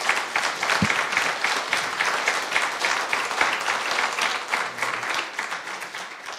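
Audience applauding: many people clapping in a dense, steady patter that slowly dies down near the end.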